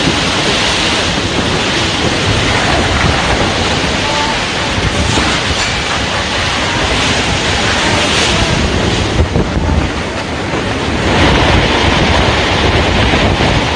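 Strong storm wind blowing hard across the microphone, a dense rushing noise that eases slightly just past the middle and picks up again.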